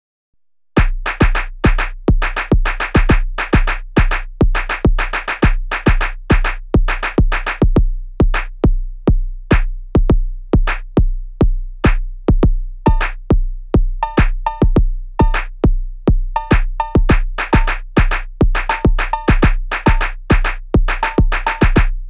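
Eurorack drum synthesis from a Noise Engineering Basimilus Iteritas Alter drum voice, triggered by a sequencer: a deep kick about twice a second under quicker sharp percussive hits, starting about a second in. From about halfway, a higher ringing tone joins some of the hits.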